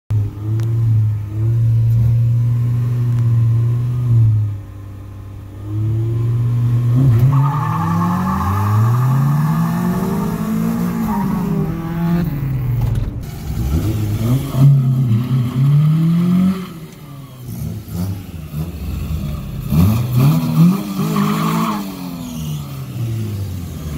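Honda B-series four-cylinder engines revving hard in a street race: a steady held engine note at first, then the revs climbing and dropping back again and again as the car is run up through the gears.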